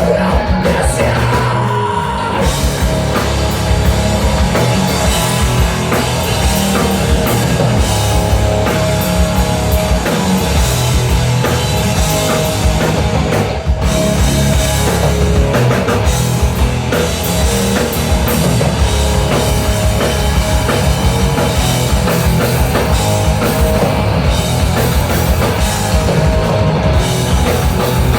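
Rock band playing live: loud, dense full-band rock with distorted guitar, bass and drum kit, keeping a steady level throughout.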